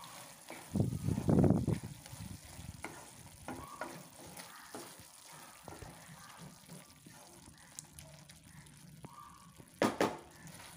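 Wooden spatula stirring thick, hot dry-anchovy gravy in a frying pan: soft scraping and light sizzling with small knocks of the spatula on the pan. A louder burst comes about a second in, and a sharp knock near the end.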